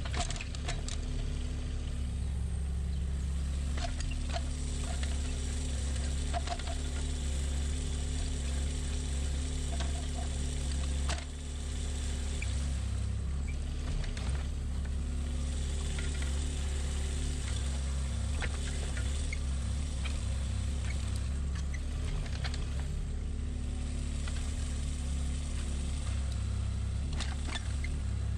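Kubota KX015-4 mini excavator's diesel engine running steadily as it digs a trench, with scattered clinks and scrapes as the bucket works through soil and stones.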